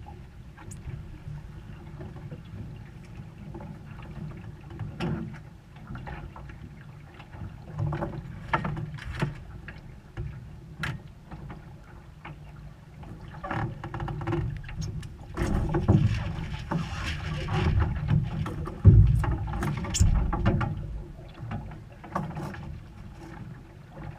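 Wind and water noise aboard a small sailing boat, a constant low rumble, with frequent clicks and knocks from the sheets and fittings as the lines are handled. It grows louder in the second half, with a heavy thump about three quarters of the way through.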